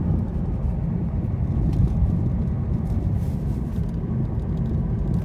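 Steady low rumble of road and tyre noise inside a Lada Vesta Cross cabin on a rough road, with faint scattered ticks. The dashboard squeak and knock the owner was listening for are absent, cured by taping the dash.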